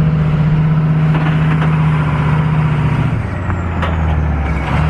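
Pickup truck engine and road noise heard from inside the cab while towing a travel trailer at low speed: a steady low drone whose note drops about three seconds in, as if the driver eases off the gas.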